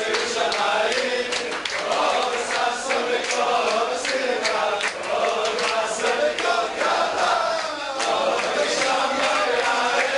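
A group of men singing together in one voice, with hand-clapping along.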